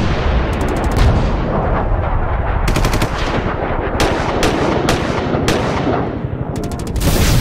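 Loud intro sound effects: a dense, noisy rumble with a heavy bass, broken by several quick clusters of sharp cracks, the loudest cluster near the end.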